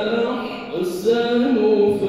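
A man's voice reciting the Qur'an in a melodic chant, holding long wavering notes into a handheld microphone, with a short break near the middle before the line goes on.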